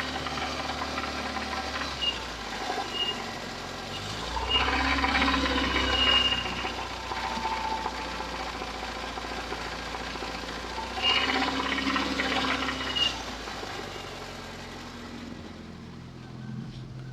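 UZAM-412 four-cylinder petrol engine running with a knock, revved up twice and let fall back to idle. The knock comes from worn connecting-rod bearings, which were found broken when the engine was opened.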